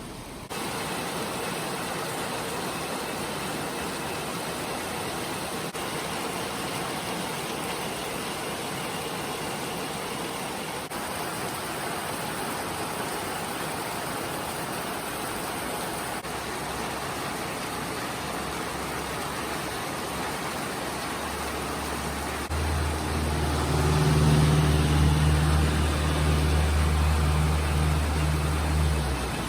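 Steady rain falling, an even hiss. About three-quarters of the way through, a vehicle's engine starts running close by with a steady low hum that is louder than the rain, and it stops just before the end.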